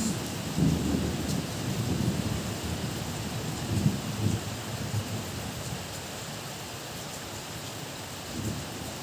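Heavy rain falling steadily, with a low rolling rumble of thunder that fades out about halfway through.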